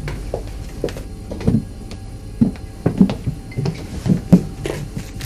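Irregular knocks and clunks of objects being handled and moved about on a shelf behind a pub bar, a dozen or so sharp hits, the loudest a few seconds in.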